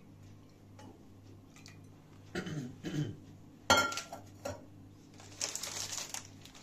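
Kitchen handling sounds: a knock and scrape about two seconds in, then a sharp metallic clank with a brief ring as a small metal milk pot is set down on the stone counter, a lighter knock after it, and near the end the crinkling of a plastic biscuit packet being picked up.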